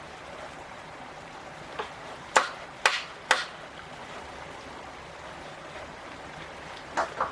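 Steady rush of flowing water, with sharp knocks: three close together about two seconds in and two more near the end.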